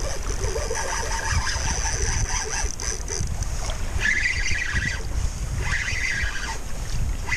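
Wind buffeting the action-camera microphone, with a Shimano Twin Power C3000 spinning reel being wound in short spells as a hooked fish is played; the winding comes in stretches of about a second from around the middle onward.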